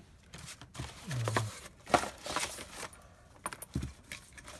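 Paper and cardboard cut-outs being picked up and shuffled on a worktable: rustling with a few light clicks and clinks, plus a brief low murmur from a voice about a second in.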